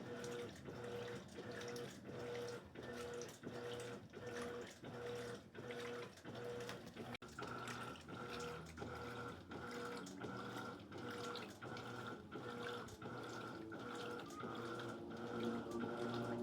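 Electrolux LED14 top-loading washing machine agitating on its turbo setting: water sloshing with the motor's whine pulsing back and forth about one and a half times a second. There is a brief dropout about seven seconds in.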